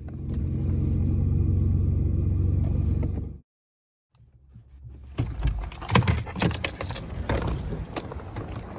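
A car running: a steady low hum for about three seconds that cuts off suddenly. After a short silence, irregular knocks and clatter begin and run on.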